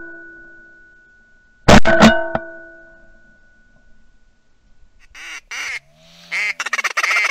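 A shotgun shot about two seconds in, followed by a ringing tone that fades. Near the end a duck call is blown in a few single quacks, then a rapid run of quacks with no pauses.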